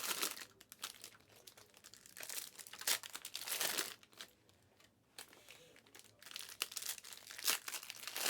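Crinkling and rustling of plastic wrapping handled in bursts, with a few short clicks and a brief pause about halfway through.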